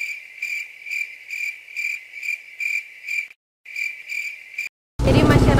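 Cricket chirping in a steady high pulse, a little over two chirps a second. It breaks off abruptly into dead silence about three seconds in, resumes, and stops again near the end.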